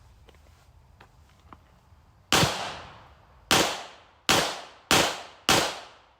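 Five gunshots fired in a string, the first two about a second apart and the last three quicker, each ending in a short decaying echo; a few faint clicks come before the first shot.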